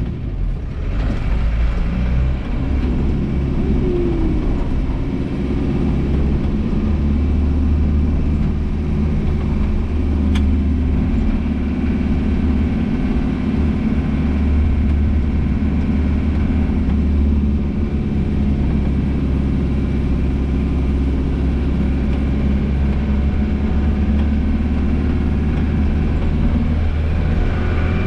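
Car being driven, heard from inside the cabin: a steady engine drone under even road and tyre noise, with the body vibrating.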